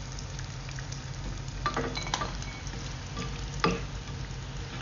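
Small wet anchovies sizzling steadily as they fry in oil in a wok. A plastic slotted spatula scoops the cooked fish out, giving three short clacks against the pan partway through.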